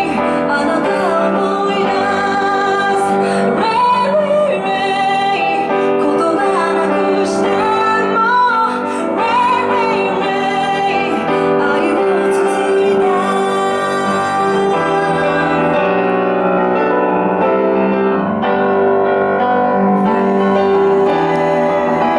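A woman singing a slow song to live piano accompaniment; her voice stops about two-thirds of the way through, leaving the piano playing alone.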